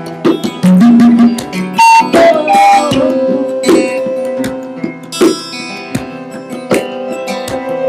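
Live acoustic group music: plucked guitar with percussive strikes and a melody that settles on one long held note about three seconds in.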